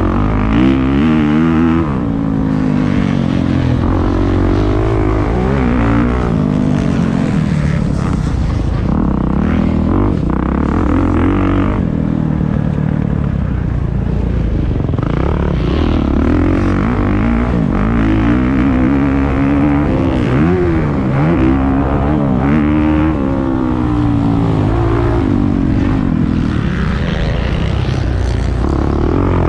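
Motocross dirt bike engine heard close from the rider's helmet, revving up and falling back again and again as the rider accelerates out of corners and shuts off into the next ones.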